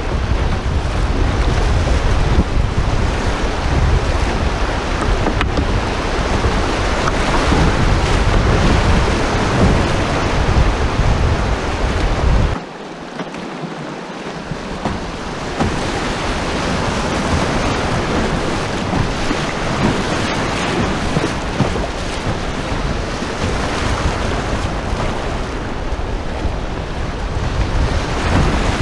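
Rushing whitewater of a fast, shallow glacial river around a canoe, with heavy wind rumble on the camera's microphone. About 12 seconds in the sound drops suddenly and the low rumble vanishes for a moment, then the rush of water carries on a little quieter.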